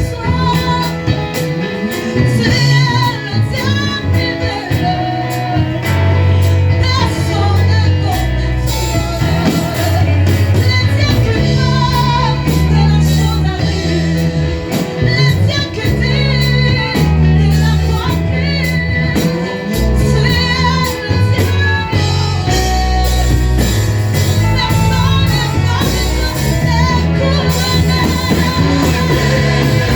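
Gospel worship music: singing over a band, with a strong bass line and a steady beat.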